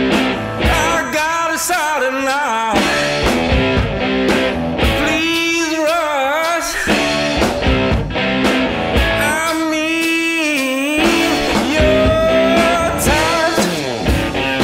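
Background rock song with a lead singer, guitars and a steady drum beat.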